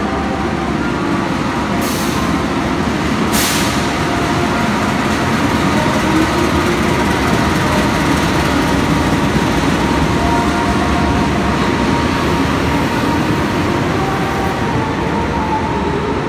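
A diesel-electric passenger train arriving: the locomotive and its stainless-steel coaches roll slowly past a station platform with a steady, loud running noise of engine and wheels. Two short hisses come about two and three and a half seconds in.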